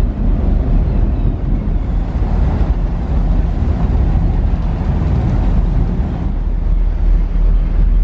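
Steady low rumble aboard a passenger ferry: its engines running and its propeller churning the water, with wind on the microphone.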